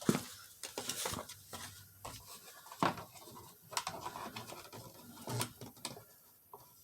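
Irregular light clicks and taps of a plastic steering column cover being handled and fitted into place, with a few sharper knocks about three seconds in.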